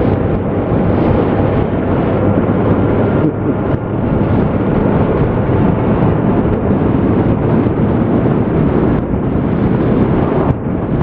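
Steady wind rush buffeting the microphone of a Suzuki GSX650F motorcycle riding at road speed, with the bike's inline-four engine running under it.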